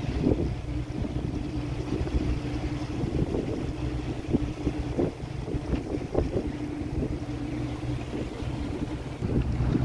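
Boat motor running steadily with a low drone, with water washing past the hull and wind gusting on the microphone.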